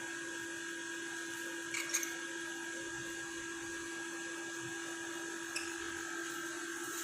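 A steady hum with a low tone and a higher whining tone, like a small motor or electrical device, with two brief high chirps from a lovebird about two seconds and five and a half seconds in.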